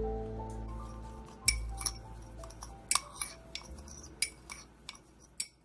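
Background music fading out, while a metal spoon clinks and taps irregularly against a small bowl as seasoning is stirred, a dozen or so sharp ringing clinks.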